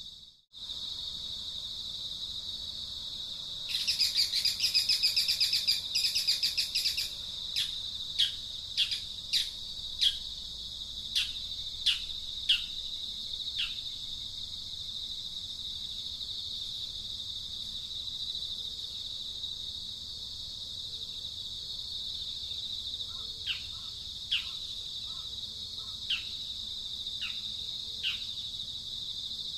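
A bird calling over a steady high drone of insects: a loud rapid chattering burst about four seconds in, then a run of short down-slurred chirps roughly two a second, with fainter ones again near the end.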